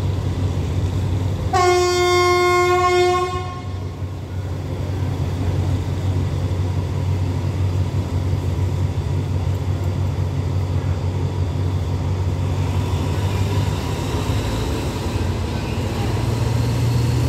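Diesel train horn sounding one steady blast, about two seconds long, starting about a second and a half in. Under it, the low, steady rumble of diesel locomotive engines runs throughout.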